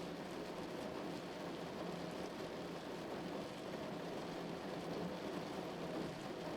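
Steady rushing noise with no distinct events, even throughout.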